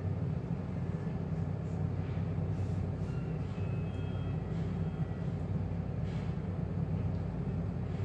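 Steady low machine hum at an even level.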